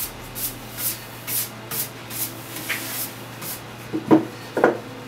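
Cloth wiped briskly back and forth over a wooden workbench top, about two swishing strokes a second. Near the end, two louder wooden knocks as the wooden jointer plane is handled on the bench.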